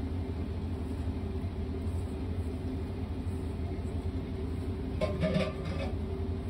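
Steady low background rumble with a faint hum, and a short sound about five seconds in.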